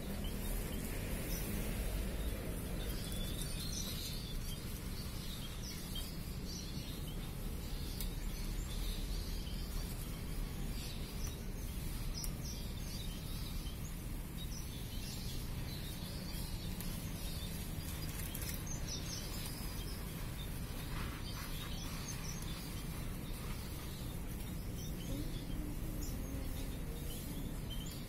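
Munias and other small finches in an aviary chirping in short, scattered calls, over a steady low background noise.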